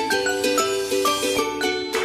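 Background music: a tune of short, quick notes over held chords.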